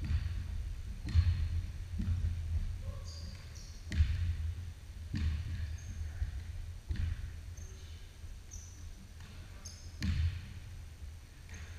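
A basketball bouncing in irregular thuds on a hardwood gym floor, echoing in a large hall, mixed with short high sneaker squeaks from players running on the court.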